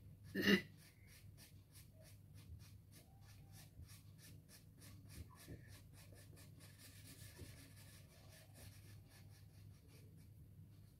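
Soft pastel stick scratching over paper in quick, repeated shading strokes, several a second, faint. One brief louder sound comes about half a second in.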